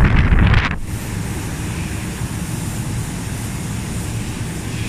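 Steady low hum of a factory hall's fans and machinery. Within the first second a loud rush of air buffets the microphone and stops sharply.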